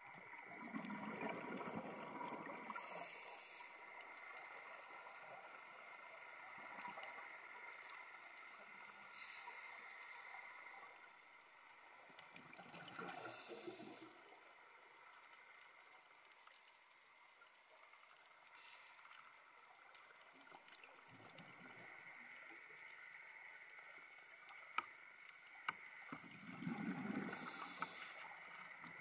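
Scuba diver's regulator heard through an underwater camera housing: three bubbly exhalation bursts roughly 13 seconds apart over a faint steady hum, with a few sharp clicks near the end.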